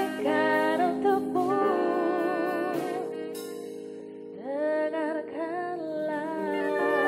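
Live pop band playing: held sung notes with vibrato over keyboard chords, bass and a saxophone, with a few drum and cymbal hits in the first three seconds. The music drops to a quieter lull about four seconds in, then swells back with new held notes.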